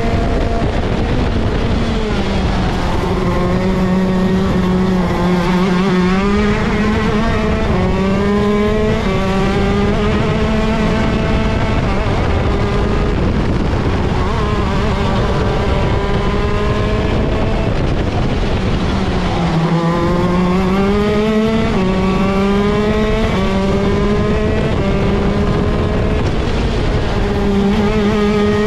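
ROK Shifter kart's 125cc two-stroke gearbox engine at racing speed, revving up in repeated rising runs, each broken off by a gear change. About twenty seconds in the pitch drops as it slows, then climbs through the gears again.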